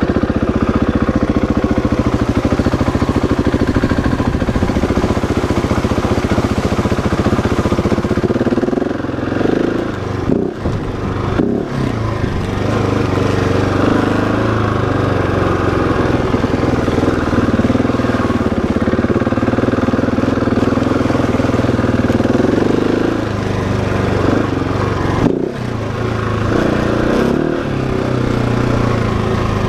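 Husqvarna 701 Enduro's single-cylinder four-stroke engine running under way, its note rising and falling with the throttle. The engine drops off briefly about ten seconds in and again near twenty-five seconds, as the throttle is rolled off.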